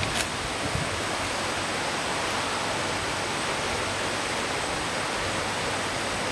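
Steady rushing of brook water.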